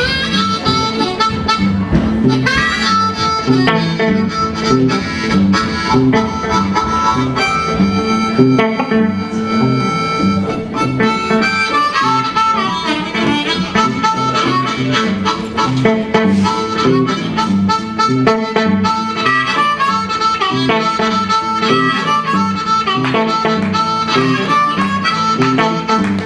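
Blues harmonica solo played cupped against a microphone, with long held and bending notes over a semi-hollow electric guitar's rhythm accompaniment.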